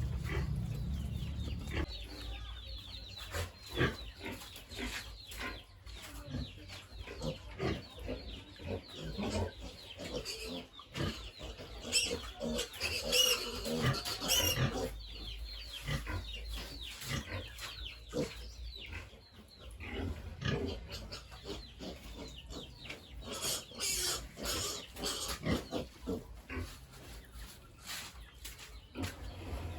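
Pigs on a farm grunting and squealing amid many short irregular knocks and clatters. The higher squeals come loudest a little before the middle and again about three-quarters through.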